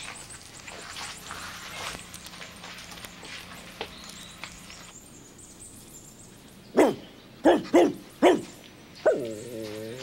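Dog barking: four short barks in quick succession, then one longer drawn-out call near the end.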